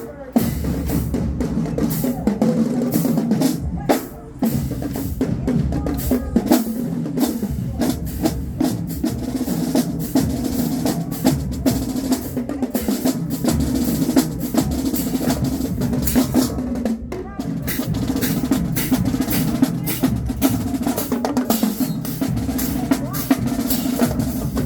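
A marching band drumline playing a cadence: snare drums with rimshots and rolls over bass drums in a steady driving rhythm, breaking off briefly about four seconds in and again around seventeen seconds.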